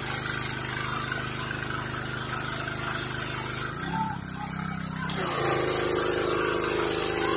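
Pressure washer running: a steady motor note under the high hiss of the water spray. Around four seconds in, the spray stops for about a second and the motor note changes, then the spray comes back with the motor running at a higher pitch.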